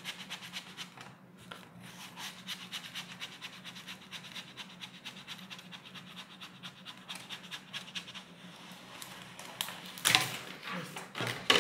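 Plastic spatula rubbing quickly back and forth over a vinyl transfer sheet in rapid scraping strokes, burnishing the cut vinyl so it lets go of its backing. A louder rustle of the sheet comes near the end.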